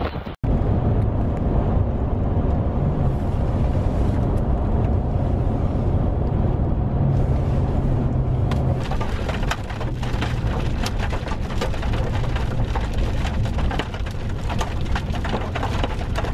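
Wind and rain in a thunderstorm: a steady rush with a low rumble. From about halfway, many sharp drop hits on a hard surface come in and continue.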